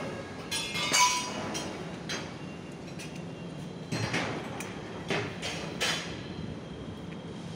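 Street ambience: a steady low hum with several sharp taps and clinks at irregular intervals.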